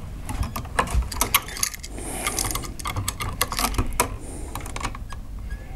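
Irregular small clicks and rattles of pliers and a copper ground wire being worked onto a three-way wall switch.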